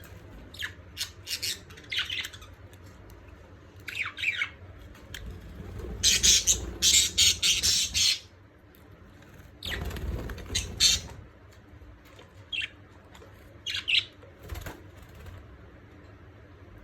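Budgerigars bathing: short chirps and squawks, with two dense bursts of wing flapping and splashing in water, the longer one about six seconds in and another about ten seconds in.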